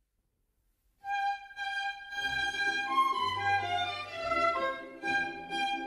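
Opening-titles music for an animated film, starting after about a second of silence: a violin melody, with a lower accompaniment joining about two seconds in.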